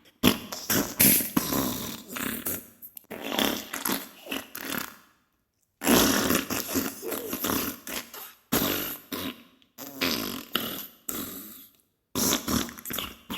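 Diarrhea sound effect: wet, sputtering farts in a run of irregular bursts, broken by two brief total silences, about five seconds in and near the end.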